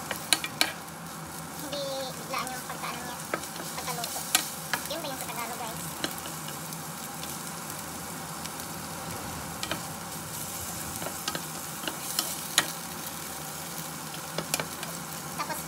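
Shrimp sizzling in hot oil in a nonstick frying pan while a wooden spatula stirs them, knocking sharply against the pan now and then.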